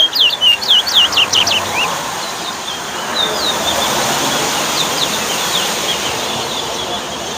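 Towa-towa songbirds whistling: a rapid run of loud, sharply falling whistled notes for about the first two seconds, then fainter scattered phrases later on. A steady background murmur runs beneath.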